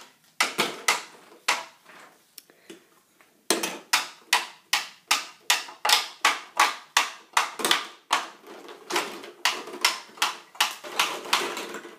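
Large plastic toy blocks clattering and knocking against a clear plastic storage bin as a toddler handles them. There are a few sharp knocks at first, then from a few seconds in a quick run of about three knocks a second.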